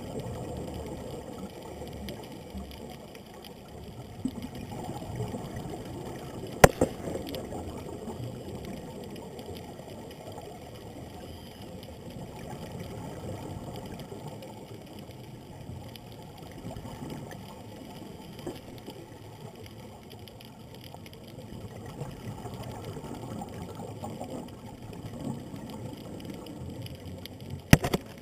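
Muffled underwater rush heard through an action camera's waterproof housing, with a sharp click about seven seconds in and two more near the end.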